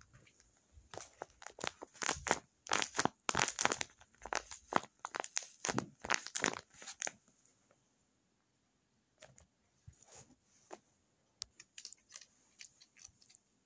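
Tape-covered paper squishy crinkling and rustling as it is squeezed and handled, in a quick run of sharp crackly strokes that stops about seven seconds in. Fainter, scattered crinkles and taps follow after a short pause.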